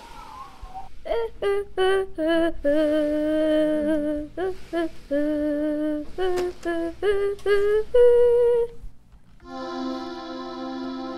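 A child's voice humming a wordless tune in short, wavering notes. Near the end it stops and a sustained chord of soft background music comes in.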